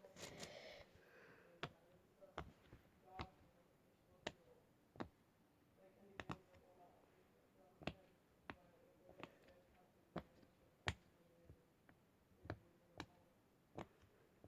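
Bubbles of a large silicone pop-it fidget being pressed one by one on its loud side. They give a string of separate sharp pops, unevenly spaced, about one or two a second.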